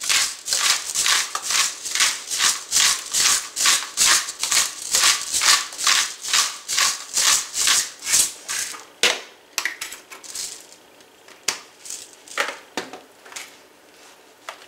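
Hand-twisted pepper mill grinding peppercorns: a rhythmic gritty crunch, about three twists a second, that stops about nine seconds in. A few scattered clicks follow.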